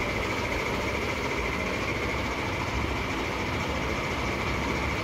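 A steady mechanical hum with a thin whine on top, unchanging throughout.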